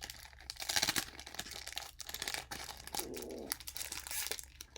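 Pokémon booster pack's foil wrapper crinkling and tearing as it is ripped open by hand, in irregular crackles.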